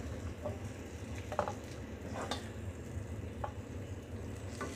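Wooden spoon scraping fried onions out of a cooking pot onto a steel plate: a few short scrapes and taps over a faint, steady sizzle of hot oil.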